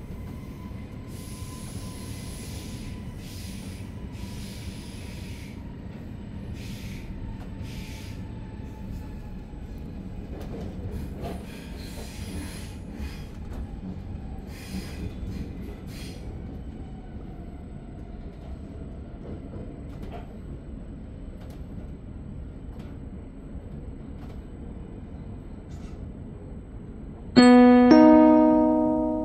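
Rumble of a double-deck commuter train running, heard from inside the coach, with an electric motor whine falling slowly in pitch as the train slows. There are a few brief hissing noises in the first half. Near the end a loud two-note chime sounds: the onboard announcement gong before the next-stop call.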